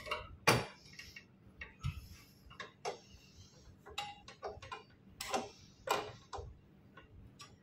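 Irregular light clicks, taps and clinks of a metal TV wall bracket and its hardware being handled, a dozen or so scattered strokes, one a little after four seconds in with a brief metallic ring.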